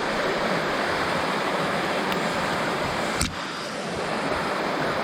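Creek water rushing steadily down a rock chute in a small waterfall. A single click sounds a little past three seconds in.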